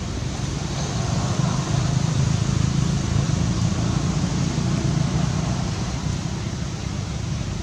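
Steady low rumbling noise with a hiss over it, like a running engine or traffic, slightly louder in the middle.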